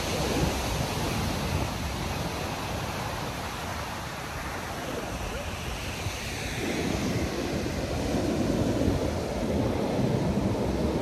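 Heavy surf breaking and washing up a sandy beach, a steady rushing wash of waves. Wind buffets the microphone, with a deeper rumble in the second half.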